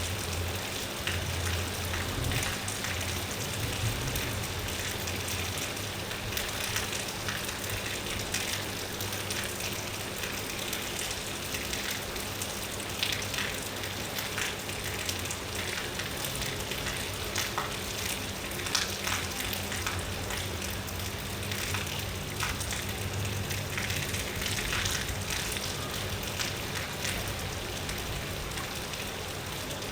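Steady rainfall, a continuous hiss of drops pattering on surfaces, with many small individual drop ticks.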